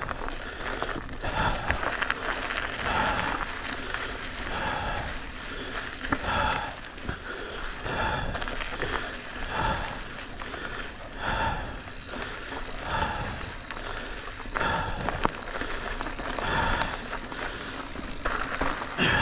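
Commencal Meta HT AM hardtail mountain bike rolling along a dirt trail: tyres crunching over gravel and leaves, with frequent small knocks and rattles from the bike. Heavy, rhythmic breathing from the rider comes about every one and a half to two seconds.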